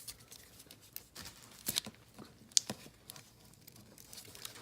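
1991 Upper Deck baseball cards being handled and flipped through one by one: light rustling with scattered sharp card clicks and snaps, the loudest about two and a half seconds in.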